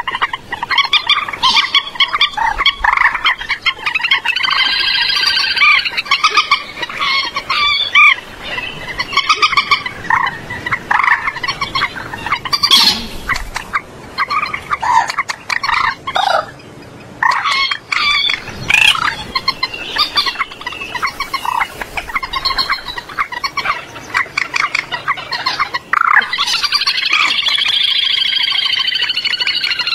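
Common moorhens calling: a dense run of short, rapid clucking notes with drawn-out calls about five seconds in and again near the end, and a brief lull past the middle. It is a lure recording of Cambodian-type moorhen calls, used to draw wild moorhens into nets.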